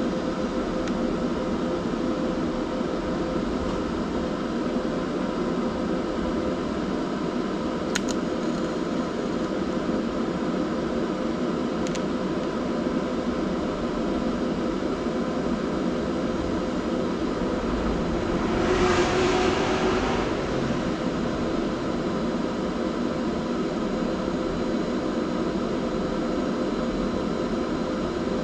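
TIG welder arc running steadily while welding a steel exhaust flange, an even hiss with a faint steady hum. Two faint clicks come about a third and halfway in, and a brief louder hiss about two-thirds of the way through.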